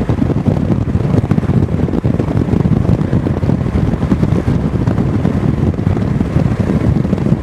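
Wind buffeting and road noise in a car driving at highway speed: a loud, steady low rumble.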